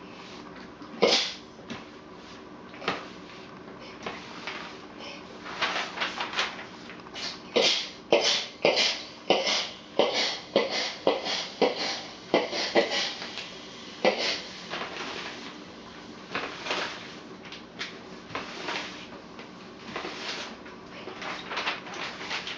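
Steam iron being worked over paper on an ironing board: a run of short, irregular hisses and rustles as the iron glides, puffs steam and the paper is shifted about.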